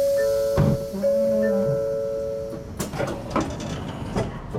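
N700 Series Shinkansen train braking to a stop at the platform: a steady brake squeal of two or three pure tones for about three seconds, fading as the train comes to rest, then a few light clicks and knocks.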